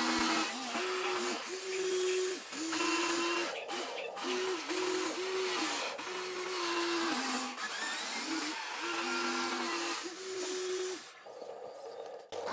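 Small electric motors of a radio-controlled construction model whirring in short start-stop bursts, each about half a second to a second long, over a steady hiss. The whirring drops away near the end.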